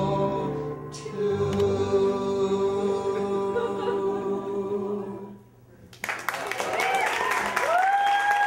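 A man and a woman singing a duet, holding long closing notes that stop about five and a half seconds in. About a second later the audience breaks into applause with whoops.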